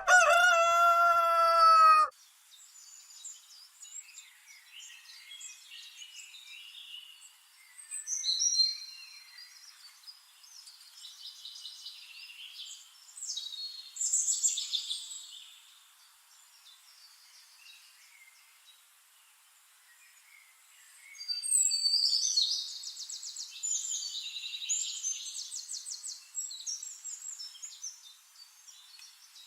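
Small birds chirping and trilling in short high phrases that come and go, busiest about eight, fourteen and twenty-two seconds in. A loud pitched tone with overtones sounds for the first two seconds and then cuts off.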